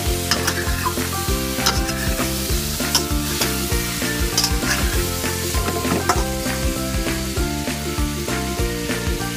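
A spatula stirring and scraping chicken pieces, potatoes and carrots in a sizzling wok, with many short scrapes and knocks against the pan. Background music with a melody plays over it.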